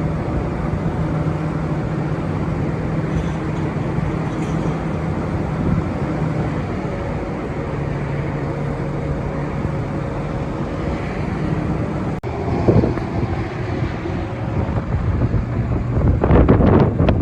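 Cummins 6.7L turbo diesel of a 2015 Ford F750 dump truck running steadily. Wind gusts on the microphone near the end.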